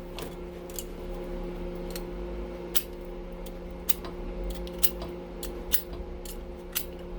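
Scattered short, sharp clicks and light scrapes of a hand tool working on the wire and metal parts of a breaker, about a dozen, uneven in spacing. Under them runs a steady electrical hum.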